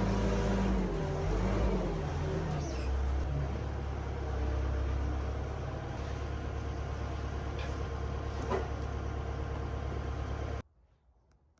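Custom 72-inch sawmill running with a steady mechanical drone, its pitch wavering in the first couple of seconds before settling. It cuts off abruptly near the end.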